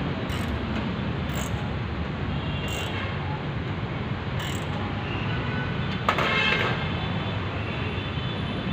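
Steady outdoor traffic hum with a few short high ticks. About six seconds in comes a single sharp metallic clank with a brief ring, from the steel panels of a boltless slotted-angle shelving rack being worked into place.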